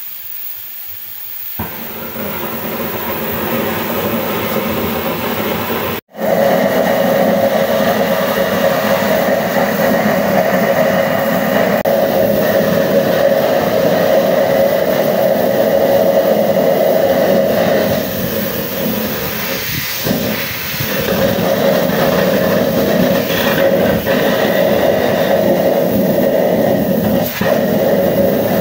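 Homemade kerosene blast burner, fed with air from a compressor, running with a steady hiss as it fires a clay-pot melting furnace. It cuts out for an instant about six seconds in and comes back louder.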